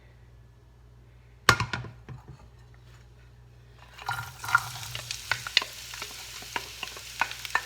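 A sharp clatter about a second and a half in, then from about four seconds in food frying and sizzling in a hot pan, with repeated clicks and scrapes of a utensil stirring it.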